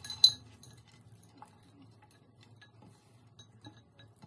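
Cookware clinking once sharply with a short ring about a quarter second in, then faint scattered ticks and light scraping as a spatula pushes poha off a tilted non-stick frying pan into a serving bowl.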